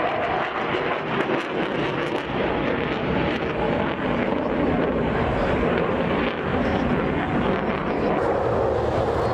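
Aircraft engine noise from a display flight: a steady, loud noise with no distinct changes.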